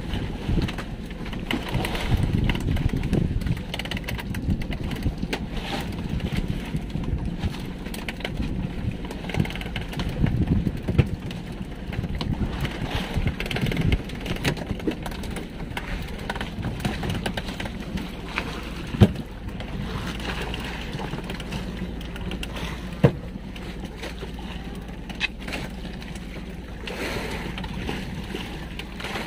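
Steady noise of a small fishing boat out on the water, with gusty wind on the microphone. Two sharp knocks stand out, one about two-thirds of the way through and another about four seconds later.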